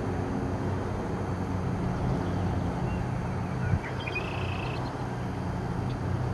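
Steady low outdoor rumble with a faint hum. A bird chirps briefly about four seconds in, just after a single soft knock.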